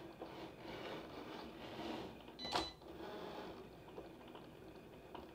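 Cricut Explore 3 cutting machine at work, its motors whirring quietly as the carriage and rollers move the mat and the blade cuts through thick vinyl. There is one sharper click about two and a half seconds in.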